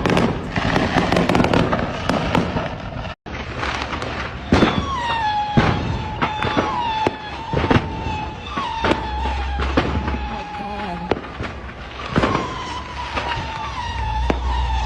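Fireworks going off in a dense, irregular string of sharp bangs and crackles. From about four seconds in, a high held tone runs under the bangs, repeatedly dipping in pitch and settling again.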